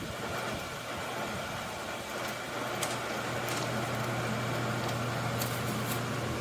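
Shinco 12,000 BTU portable air conditioner running: a steady rush of fan air over a low compressor hum, which settles into a firm, even drone about two seconds in.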